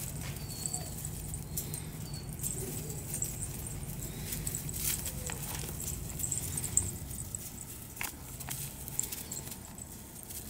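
Weimaraner puppies' paws rustling and crunching through dry leaf litter as they scramble about, with scattered light clicks and taps.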